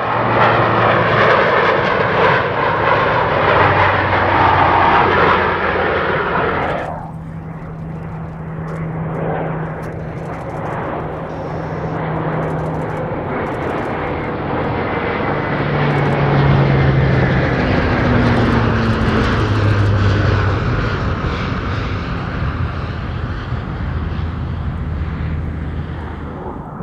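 Jet engine roar from Blue Angels F/A-18 Super Hornets flying past. It is loud for the first seven seconds, then drops abruptly to a lower rumble with slowly shifting, falling tones as the jets move away.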